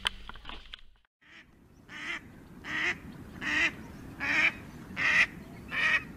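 Waterfowl honking in a steady series of short calls, about one every three-quarters of a second, starting after a brief near-silent gap about a second in.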